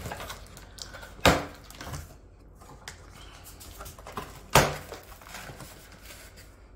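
A cardboard box being handled while it is opened: two sharp knocks, about a second in and again about four and a half seconds in, with light tapping and rustling between.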